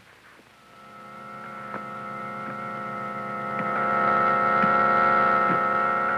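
A sustained organ chord that swells up over the first four seconds and then holds steady, with a few faint ticks.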